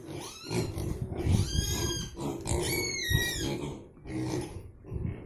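Pigs squealing and grunting: two high-pitched squeals in quick succession, each falling in pitch, over low grunting.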